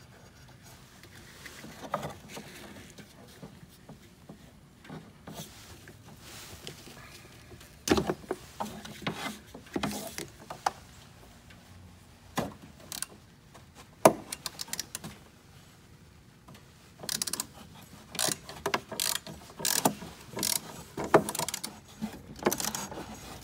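Scattered metallic clicks and knocks of hand tools and the wiper linkage as the wiper motor's mounting bolts are worked loose under a semi truck's cowl, with one sharp knock about halfway through and a quicker run of clicks in the last few seconds.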